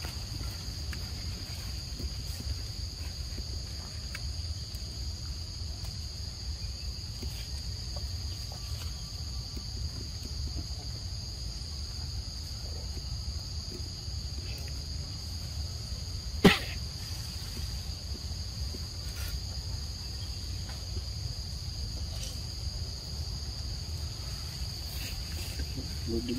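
Steady, high-pitched drone of an insect chorus over a low rumble, with one sharp click well past halfway.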